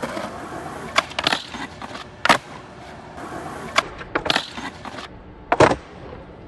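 Skateboard rolling on wet pavement with a hissing wheel noise, broken by about six sharp clacks and slaps of the board against the ground, the loudest about two seconds in and again near the end.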